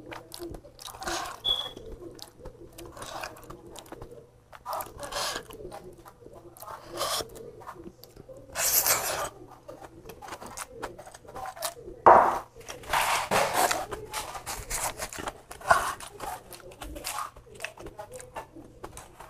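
Close, clip-on-miked eating sounds: irregular chewing and lip smacking, with fingers picking food off a ceramic plate, plus a few louder noisy mouth or handling sounds about halfway through.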